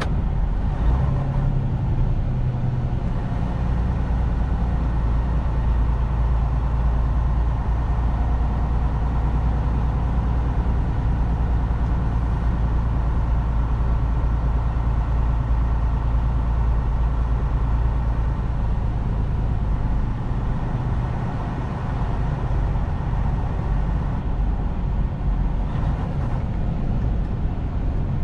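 Semi truck's diesel engine running steadily with a low drone and road noise.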